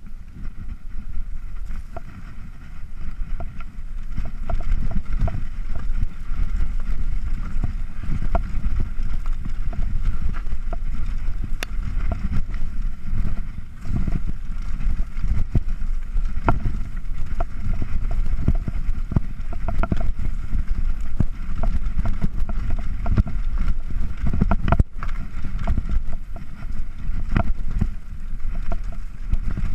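Downhill mountain bike riding fast over a rough dirt trail: a steady heavy rumble of wind on the chest-mounted GoPro and tyres on the ground, with frequent clicks and knocks as the bike rattles over the bumps. It grows louder over the first few seconds as the bike picks up speed.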